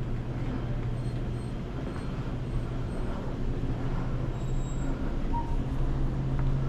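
Steady low hum of traffic and an idling vehicle engine, with no distinct events.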